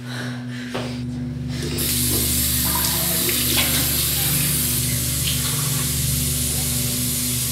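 Water running from a single-lever bathroom tap into a ceramic sink. It starts about two seconds in and then runs steadily.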